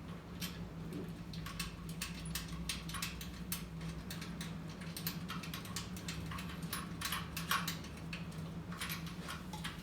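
Irregular light metallic clicks and taps of hardware and hand tools being handled while a small engine is positioned and bolted to a frame, over a steady low hum.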